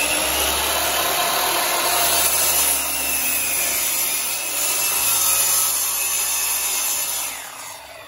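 Makita miter saw running and cutting through an old barn-wood board, then switched off near the end, the blade winding down with falling pitch.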